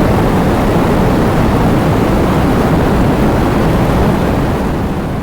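Heavy rain falling in a steady, dense downpour with a deep rumbling low end, starting to fade out near the end.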